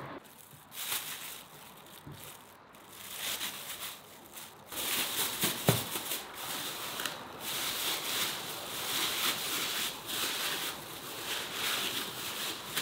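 Thin plastic bag crinkling and rustling as pieces of marinated fish are put into it with corn flour. From about five seconds in, the bag is twisted shut and shaken to coat the fish, giving a busier, steady shaking rustle.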